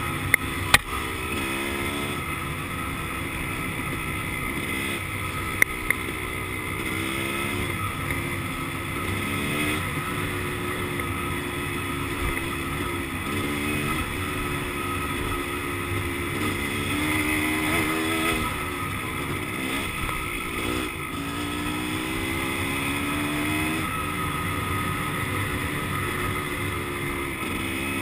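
Dirt bike engine running under load on a dirt trail, revving up and dropping again and again as the rider rolls on and off the throttle and shifts gears. A few sharp clacks sound near the start and again about six seconds in.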